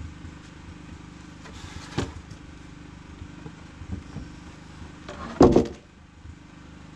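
Wooden boards being shifted and laid in place, with sharp knocks about two and four seconds in and a heavy wooden thump about five and a half seconds in as a plank comes down. A steady low engine hum runs underneath.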